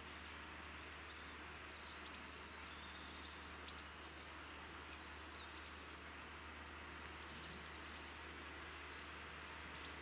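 Great tit giving short, high chirps, single and paired notes every second or two, over a steady background hiss.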